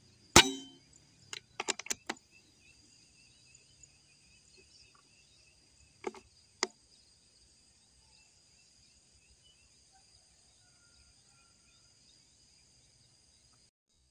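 An air rifle fires a single shot about half a second in, a sharp crack with a short tail. A rapid run of several lighter metallic clicks follows a second or so later, and two more single clicks come about six seconds in.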